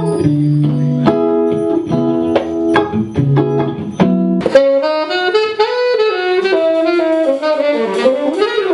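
Funk band playing: punchy repeated chords over a bass line and drum hits, then, about four and a half seconds in, a melodic lead line that slides up and down in pitch.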